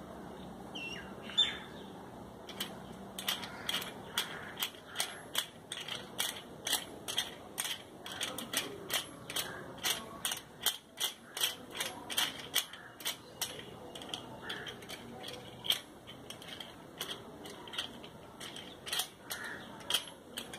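Plastic bench clamp stand for a rotary tool's flexible shaft being handled and fitted together with its metal hanger rod: a long run of quick, irregular clicks and rattles of plastic and metal parts.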